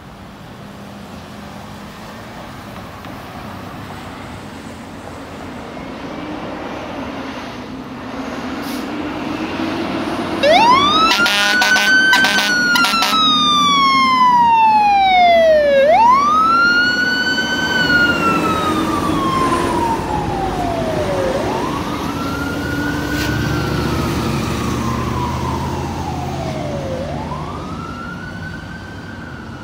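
Fire apparatus sirens wailing as a ladder truck and engine pass. Each wail rises quickly and winds down slowly, repeating about every five and a half seconds, with the deep rumble of the rigs' diesel engines under them. The siren starts about ten seconds in, after a growing approach.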